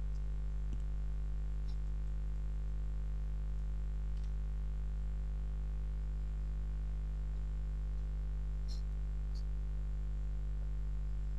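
Steady low electrical hum with evenly spaced overtones, with a few faint, short clicks scattered through it.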